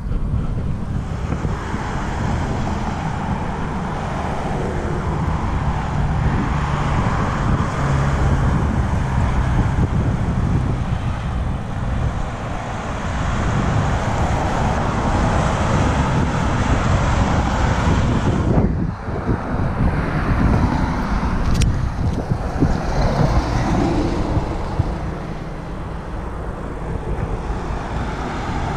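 Steady outdoor noise of wind rumbling on the microphone mixed with car traffic passing on the road, with a brief dip a little past halfway.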